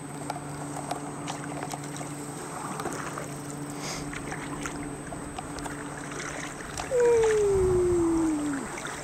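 Kayak on the water: faint knocks and splashes over a steady low hum. About seven seconds in, a loud tone slides down in pitch for under two seconds.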